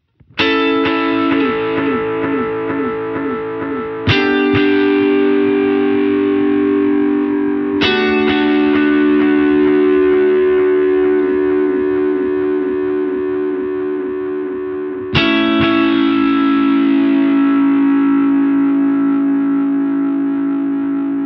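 Electric guitar strumming four chords, about four seconds apart with a longer gap before the last, each left to ring out through a delay effect whose repeats trail the chords.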